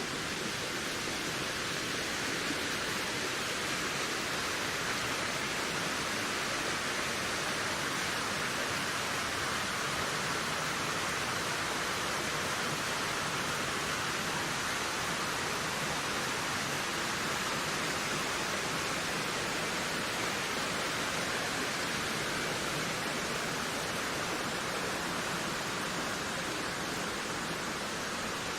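Wind blowing as a steady rushing hiss, swelling gently and easing again.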